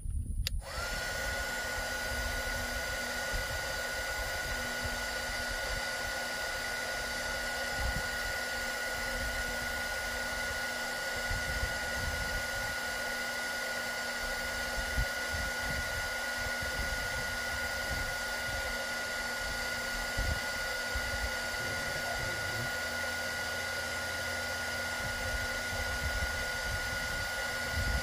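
Bauer 20V cordless heat gun switched on just under a second in and running steadily: its fan blows with a steady high whine. It is heating a solder heat-shrink connector on a wire.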